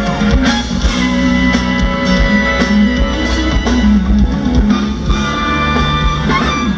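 Live band playing loudly through a concert PA, an instrumental opening with regular drum hits over sustained bass notes and no vocals yet.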